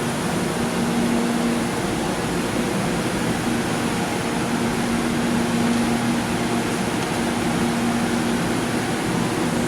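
Steady rushing mechanical noise, like a fan or blower running, with a faint low hum that fades in and out several times.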